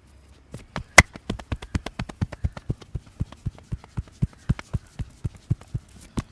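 Rapid, rhythmic hand strikes on the head and neck in a barber's massage, about seven a second, starting about half a second in. One strike about a second in is sharper and louder than the rest.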